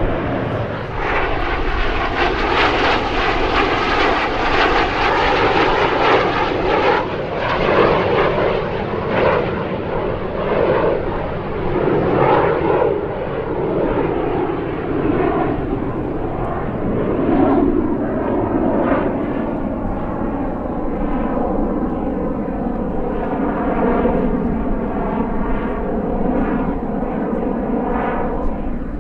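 Canadair CT-114 Tutor jets, each with a single J85 turbojet, flying past in formation with a continuous loud jet roar. For about the first seven seconds the sound is at its fullest and hissiest. Then the high end falls away and the sound sweeps and shifts as the jets move off.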